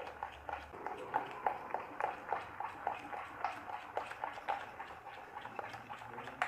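Thick jalebi batter of flour, yogurt and gram flour being beaten by hand in a glass bowl: a steady run of short slapping strokes, about three a second.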